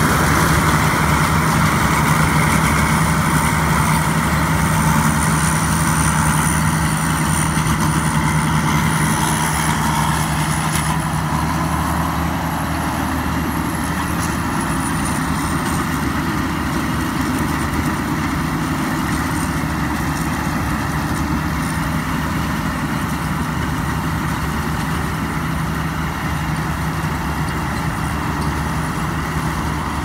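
Kaset Pattana tracked rice combine harvester, with a Hino 195 turbo diesel, running steadily under load while harvesting. It gives an even engine drone with a thin, wavering high whine over it, and grows slightly fainter as the machine moves away.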